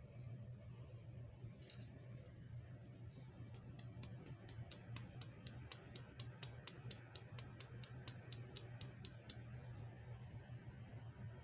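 A quick, even run of small clicks, about five a second for about six seconds, with a single click a little earlier, over a steady low hum.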